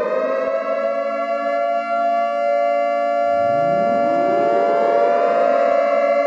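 Air-raid siren winding up and holding a steady wail, with a second siren rising in about three seconds in and sounding alongside it.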